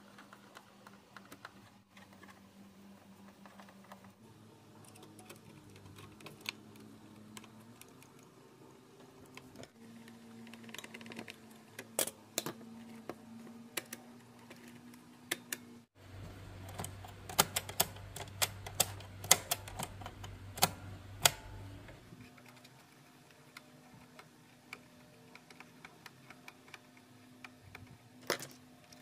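Irregular sharp clicks and taps of small hard parts over a faint low hum. From about 16 to 22 seconds in, the hum grows louder and the clicks come thick and fast, several of them loud.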